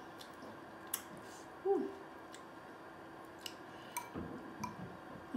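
A metal spoon scooping sauce from a glass bowl: a few light clicks and short ringing clinks against the glass, most of them about four seconds in. A brief hummed 'mm' comes just before the second second ends.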